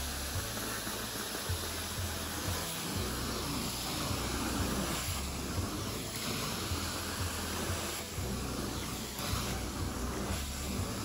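Background music with a steady bass line, over the continuous hissing rush of a hot water extraction carpet wand spraying and sucking water back up as it is drawn across the carpet.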